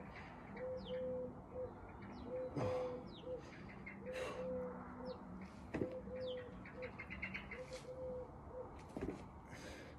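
A dove cooing over and over in short repeated phrases, with small birds chirping high and fast in the background. A few soft knocks and rustles break in, the sharpest about six seconds in.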